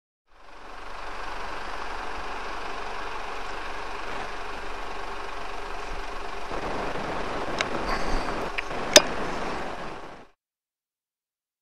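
Steady background hiss on the thermal riflescope's recording. There are small clicks about seven and a half and eight and a half seconds in, then one sharp rifle shot about nine seconds in, the loudest sound. The recording cuts off about a second later.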